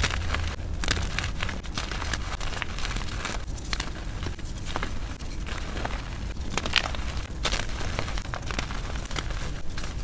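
Hands crushing gritty BSN gym chalk and purple reformed chalk: a dense, irregular stream of dry crunches and crackles as the lumps break apart and the powder grinds between the palms.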